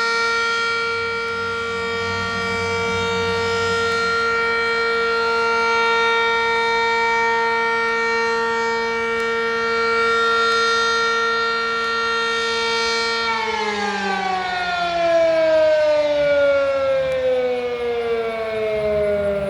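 Sentry 15V1T outdoor warning siren sounding the steady 'alert' signal, one held tone, then winding down with a slowly falling pitch from about 13 seconds in.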